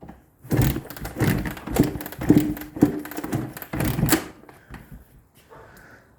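Kick-starter of a 1984 Honda CR80's two-stroke engine being worked against compression: a string of metallic clunks about every half second, with no sign of the engine firing.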